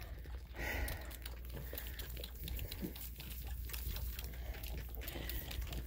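Goat kids suckling at the rubber nipples of a bucket feeder: a run of soft smacking, sucking clicks, with straw rustling under their hooves.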